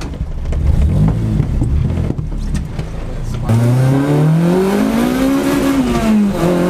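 Honda Integra DC2's four-cylinder engine under acceleration. After a rougher stretch, its pitch climbs steadily for about two seconds, drops back as the throttle comes off, then holds steady.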